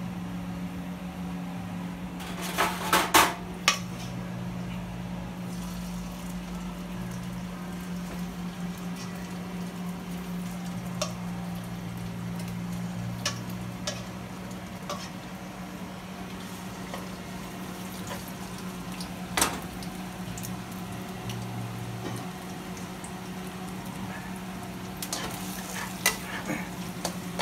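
Metal tongs clinking and scraping in a stainless steel bowl as a liquid is stirred, with a few loud sharp clatters of utensils about three seconds in. Near the end, sliced beef is stir-fried in a wok, sizzling and turned with tongs. A steady low hum runs underneath.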